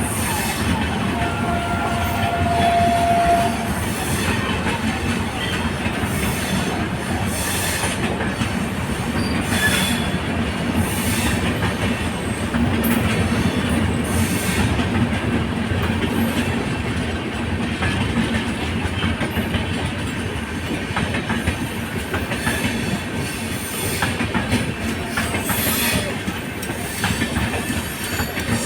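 Coromandel Express express train running along the rails, its wheels clattering rhythmically over rail joints with a steady rumble throughout. A brief high steady tone sounds in the first few seconds.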